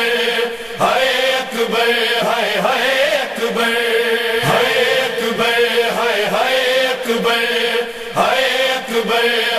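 Noha, a Shia mourning lament, chanted by male voices over a steady drone.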